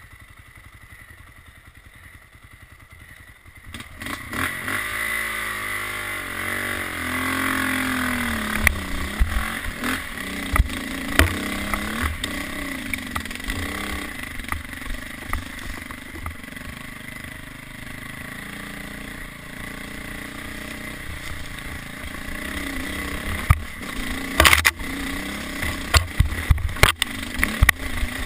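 KTM 400 dirt bike engine running low for the first few seconds, then revving up about four seconds in and pulling hard up a steep trail, its pitch rising and falling with the throttle. Sharp clatter and knocks from the bike over rocks and ruts, loudest and most frequent near the end.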